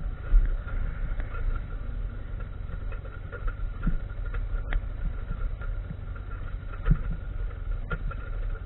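Motorcycle engine running steadily at low speed as the bike is ridden slowly over rough frozen grass, with a few sharp knocks from the bumps, the strongest about four and seven seconds in.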